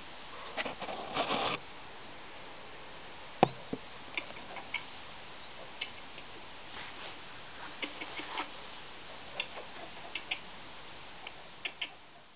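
A red squirrel's scurrying on wooden porch boards: scattered small clicks and scratches, with a brief scuffle about a second in and a sharper knock about three and a half seconds in, over a steady hiss.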